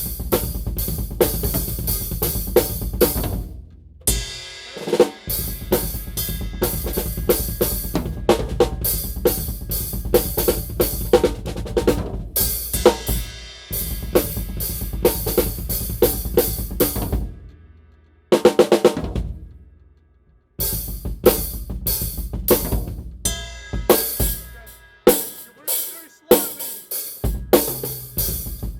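Acoustic drum kit played in a small, untreated storage room: kick, snare, hi-hat and cymbals in fast grooves and fills. The playing stops briefly a few times, and there is a quick roll of rapid strokes about eighteen seconds in.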